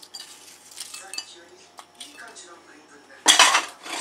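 Ceramic bowls knocking and clinking together as raw sweet shrimp are tipped from one bowl into another, with small knocks throughout and one loud clatter of crockery about three seconds in.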